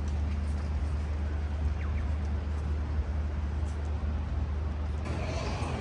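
Steady low rumble of street traffic, with music starting up near the end.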